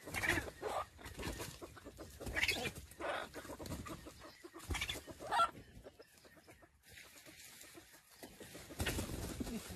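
Wild jungle chicken clucking: a handful of short calls in the first half, then quieter.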